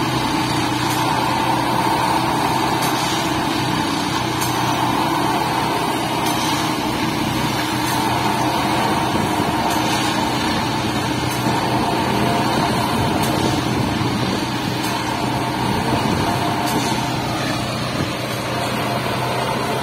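Plasser & Theurer 09-32 CSM track tamping machine working: its diesel engine and hydraulics make a steady machine drone with several held tones. Faint regular ticks come about every two seconds, and a tone falls slightly near the end.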